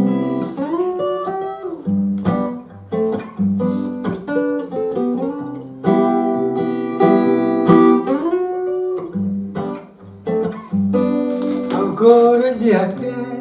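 Acoustic guitar playing the introduction to a song: chords under a melody line with sliding notes.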